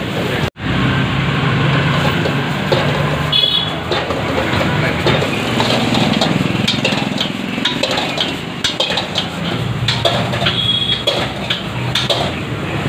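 Metal ladle clanking and scraping in a wok as fried rice is stir-fried over a high gas flame. A steady rushing noise and background voices run beneath it.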